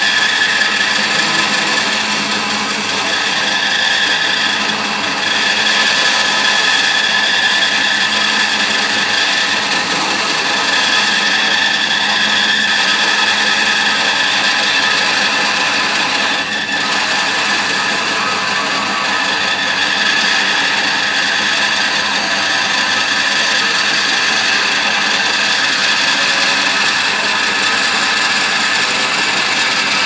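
Bandsaw running and cutting lengthways through a block of timber, resawing it down to thickness: a steady whine with the hiss of the blade in the wood, with a brief dip about halfway through.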